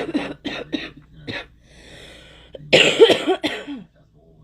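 A young woman coughing: a quick run of short coughs, then a louder, longer coughing fit about three seconds in.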